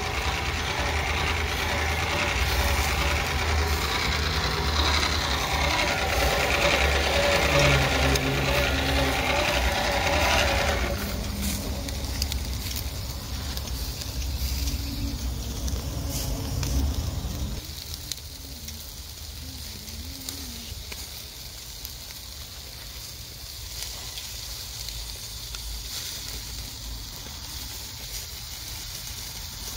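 Hand-cranked blower whirring steadily as it is cranked to force air into the charcoal, stopping about eleven seconds in and dying away a few seconds later. After that, chicken skewers sizzle and hiss over the hot charcoal.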